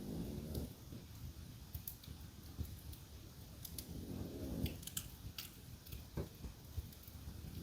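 French bulldog snoring in its sleep, one slow snore at the start and another about four seconds in, over a wood fire in a fireplace crackling and popping with scattered sharp snaps.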